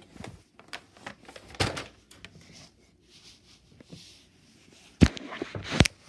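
A few scattered clicks and knocks, with two sharper thumps about five seconds in and just before the end.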